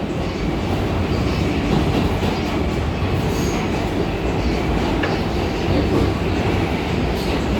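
R142A subway train running on the tracks: a steady low rumble and rattle, with no door chime sounding.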